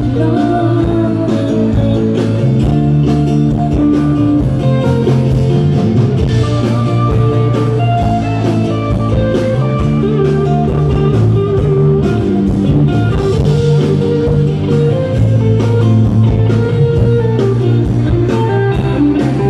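Live band playing an instrumental break with no singing: acoustic guitar to the fore over drums keeping a steady beat.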